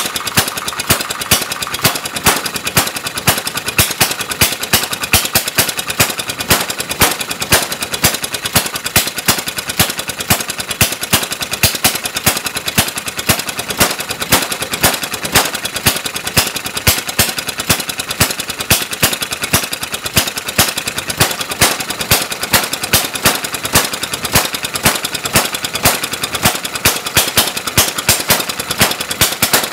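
Antique Maytag upright half-horsepower single-cylinder two-stroke engine running on battery ignition just after a cold start, firing as a steady train of sharp pops, about two to three strong ones a second. The governor keeps it at low speed, so it fires only now and then rather than on every turn.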